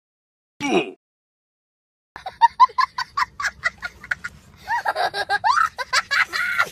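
A young boy laughing hysterically: a short sound under a second in, then from about two seconds a fast run of laughs, about four a second, which turns into longer, drawn-out laughs.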